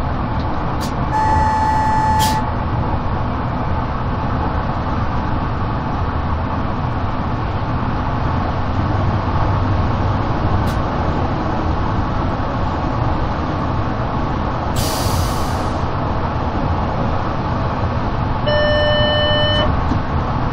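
Steady running noise of a Stadler GTW 2/6 railcar heard from the driver's cab, the wheels and drive rumbling evenly along the track. An electronic beep sounds for about a second near the start and a lower one near the end, and a short hiss comes about three-quarters of the way through.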